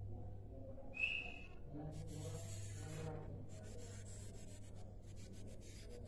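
Caged sikatan londo (a flycatcher) giving one short, slightly falling whistled call about a second in, followed by scratchy rustling and a run of quick ticks as it moves about the cage, over a low steady hum.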